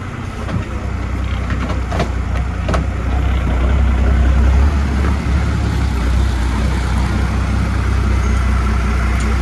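Truck engine idling steadily with a deep rumble, a little louder from about three seconds in, and two sharp knocks about two seconds in.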